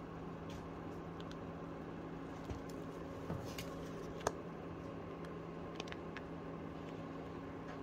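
Small clicks and taps of a smartphone and its suction cup being handled, the sharpest about four seconds in, over a steady low hum.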